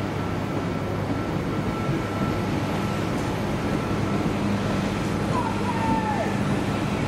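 A train running, a steady rumble and hum, with a brief falling squeal about five seconds in.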